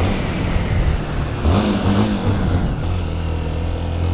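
Honda XRE 300's single-cylinder engine accelerating hard, its note rising midway and then settling into a steady pull near the end, with wind rushing over the microphone.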